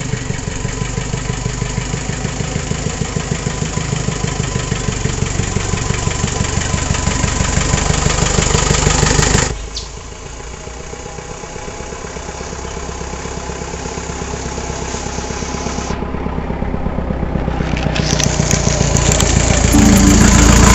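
Mahindra open jeep's engine running with an even pulsing beat as the jeep drives toward the microphone, growing louder as it nears. About nine seconds in the sound cuts off abruptly and starts again quieter, then builds once more as the jeep comes close.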